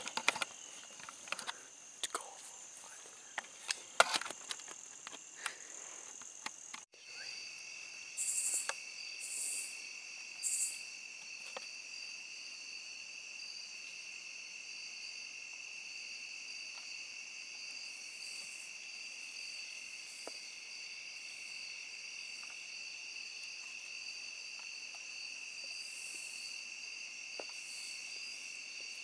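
Evening insect chorus of crickets and other insects, trilling steadily at several high pitches, with a few short high buzzes about eight to eleven seconds in. Over the first several seconds scattered clicks and knocks stand out, the sharpest about four seconds in.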